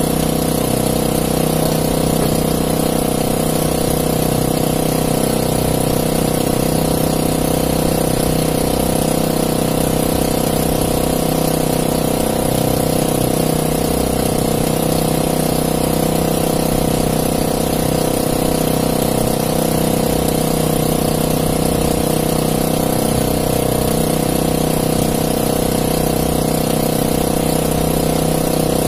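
Outrigger fishing boat's engine running steadily at an even, unchanging speed.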